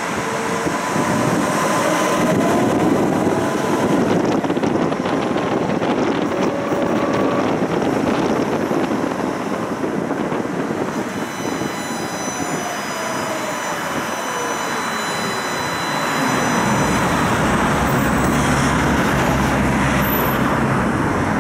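Tram ride heard from inside the car: wheels running on the rails under a steady rumble, with the electric traction motors whining. The whine rises in the first few seconds as the tram speeds up, then falls steadily from about ten seconds in as it brakes and slows to a stop.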